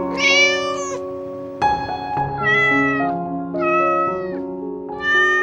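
A cat meows four times, each call drawn out for about half a second to a second, over soft background music with held notes.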